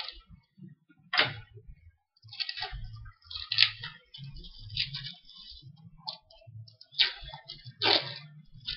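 A shipping package being opened by hand: irregular rustling, tearing and scraping of the packaging, with several sharp snaps and dull handling knocks.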